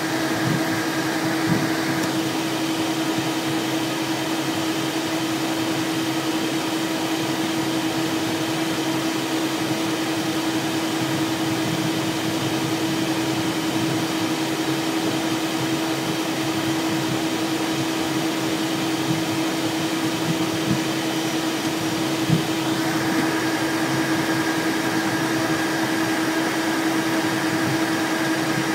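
Steady cockpit noise of a Cessna Citation Excel taxiing: the even whir of its idling Pratt & Whitney Canada PW545 turbofans and cabin air, with a constant low hum. A fainter higher whine drops out about two seconds in and comes back near the end.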